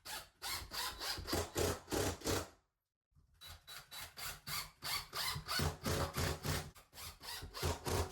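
Hand saw cutting through wall board in quick back-and-forth strokes, about four a second, with a short pause about two and a half seconds in.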